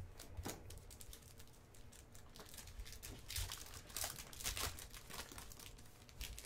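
Foil wrapper of a Panini basketball card pack being torn open and crinkled by hand, with a rapid crackling that is thickest about three to five seconds in.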